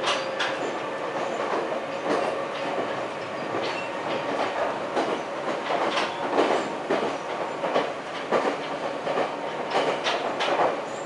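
Inside the carriage of a Meitetsu electric train running at speed: a steady rumble of wheels on the track, broken by irregularly spaced clicks and knocks from the wheels and track.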